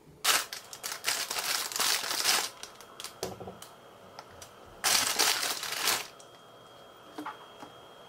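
Plastic bread bag crinkling in two long bursts as slices of bread are taken out of it, with a soft bump between them.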